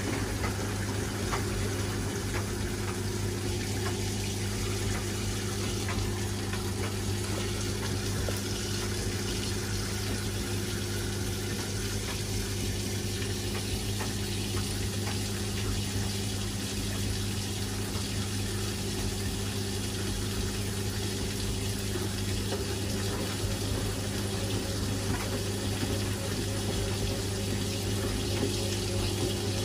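Washing machine mid-cycle: water flowing inside the drum over a steady, even hum from a pump.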